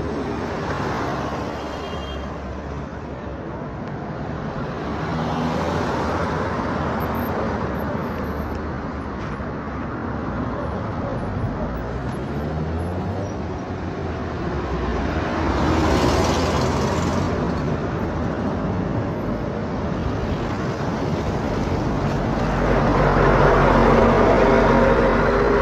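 Road traffic: vehicles passing one after another on a busy street, each swelling up and fading, with the loudest passing close near the end.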